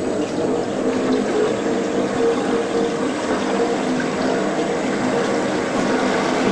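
Planetary mixer running, its motor and gear drive giving a steady whirring hum with a few held tones.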